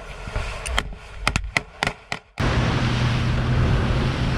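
A scattered series of sharp gunshot cracks, then an abrupt cut to steady wind and sea noise under a low engine hum.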